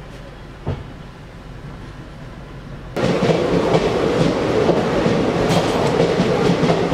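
A faint hum with one brief knock near the start, then, about three seconds in, the loud steady rumble and clatter of passenger train coaches rolling close by, wheels clicking over the rail joints.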